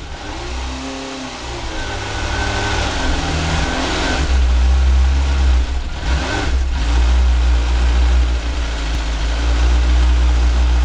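Suzuki GSX-R sportbike engine running, a newly fitted replacement engine, idling steadily with its revs raised briefly twice.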